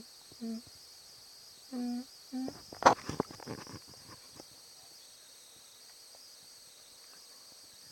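A person humming two short notes, then a brief burst of crackling, clattering noise about three seconds in, over a steady high-pitched hiss.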